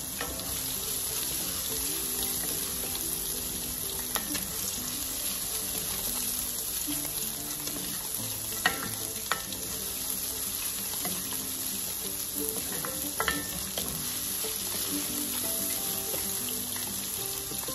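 Chopped garlic and ginger sizzling steadily in melted butter over medium-low heat, stirred with a wooden spatula in an enamelled cast-iron pot. A few sharp clicks of the spatula against the pot, the loudest about nine seconds in.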